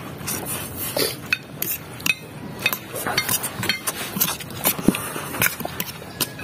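A metal fork clinking and scraping against a plate in quick, irregular strokes as pancit noodles are shovelled up and slurped in a hurry.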